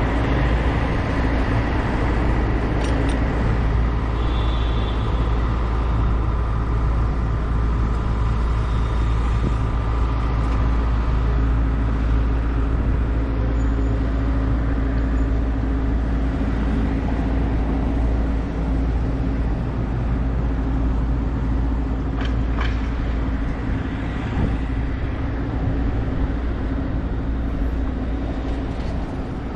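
City street traffic: cars and other vehicles running past and idling in a steady rumble, with a steady engine hum joining partway through and a couple of brief clicks.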